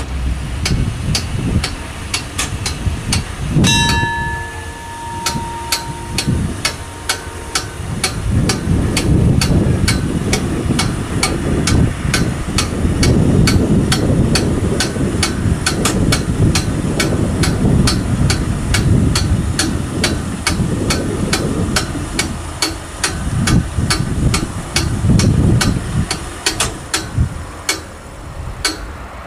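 Italian level-crossing bell (FS88 + TD 96/2) striking steadily about twice a second while the barriers rise after a train has passed. It stops shortly before the end. A held high tone sounds for a few seconds about four seconds in, over a low rumble.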